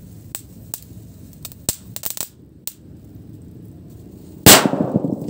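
A homemade triangle firecracker exploding with a single sharp bang about four and a half seconds in, followed by a short rumbling tail. A few faint crackles come before it.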